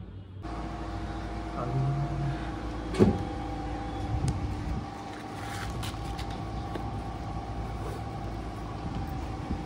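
Steady low mechanical drone with a few constant hum tones, starting about half a second in, with a single sharp click about three seconds in.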